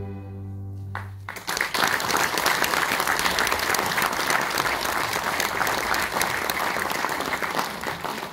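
The last held note of a school ensemble of mandolins, violins and piano dies away about a second in. Audience applause then breaks out and runs on, fading slightly near the end.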